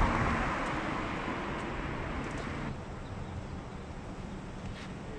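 Motor oil poured from a bottle straight into an engine's oil filler without a funnel, a steady pour that stops abruptly under three seconds in.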